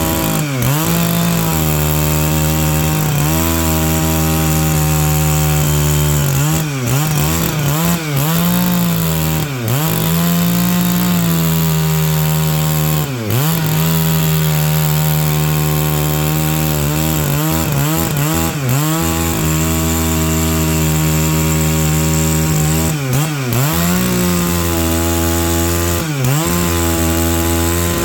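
Stihl MS 660 two-stroke chainsaw running at high revs, cutting pine logs. Its pitch holds steady, then dips briefly and recovers now and then.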